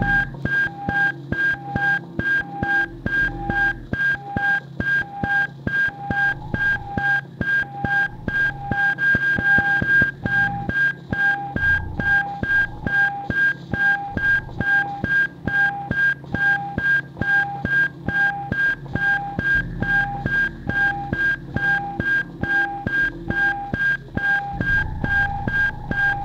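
Looped lo-fi electronic music: a high electronic beep repeating about one and a half times a second over a steady high tone, a fast ticking pulse and a shifting low drone.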